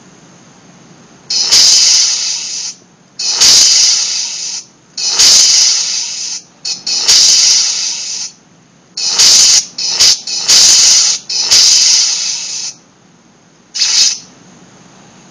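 Lightsaber sound-effect circuit playing bursts of hissing effect sound through a small speaker. There are about nine bursts, most about a second long and a few brief, each starting sharply and fading away, separated by short gaps of a low background hum.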